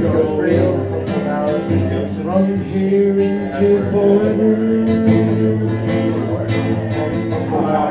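Acoustic guitar strummed with a man singing long, drawn-out notes in a live performance of a chant-like song.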